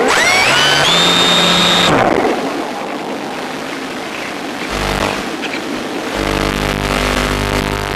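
A high electronic tone glides upward and holds for about two seconds, then stops. The Cularis glider's electric motor comes on briefly near the five-second mark and runs steadily from about six seconds in, a low even hum with wind noise over it.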